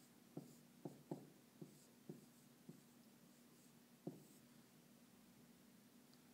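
Marker pen writing on a whiteboard: faint, short strokes as letters are drawn, several in the first three seconds and one more about four seconds in.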